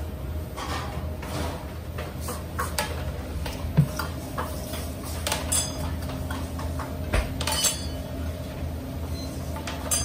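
Scattered knocks and clinks from a stainless-steel mixing bowl as gloved hands roll dough balls through rolled oats and black seeds, over a steady low hum. Two of the strikes, a little past the middle, ring briefly like metal.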